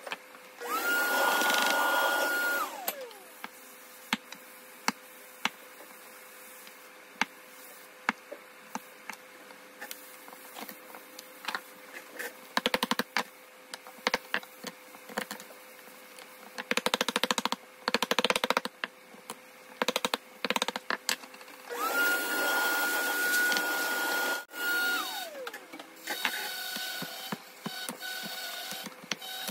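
Hand chisel work in a hardwood slab: scattered sharp taps and paring strokes, with quick runs of strokes in the middle, as bow-tie mortises are cleaned out. Twice, near the start and again about two-thirds of the way through, a small power tool motor spins up, runs at a steady high pitch for two to three seconds and winds down.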